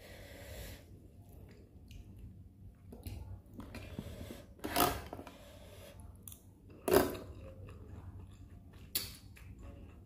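Close-up chewing of canned sweet corn kernels. Three short, sharp sounds come about two seconds apart, from a little before the middle to near the end; the second is the loudest.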